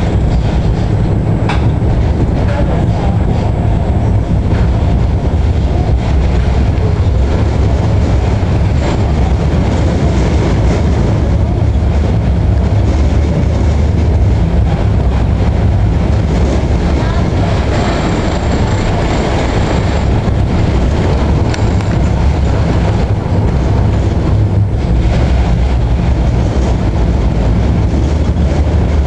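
Tram running along street-running rails, heard from on board: a steady low rumble of wheels and running gear with a few sharp clicks from the wheels on the track.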